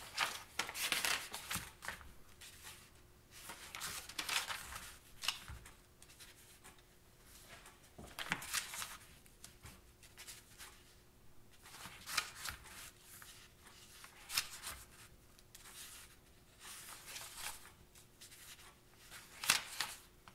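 Paper pages of an instruction manual being turned and rustled by hand, in a string of short rustles a few seconds apart.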